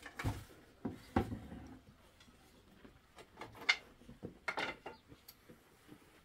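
Scattered light knocks, clatters and rubbing of household objects and wood being handled, with sharper knocks about a second in and again past the middle.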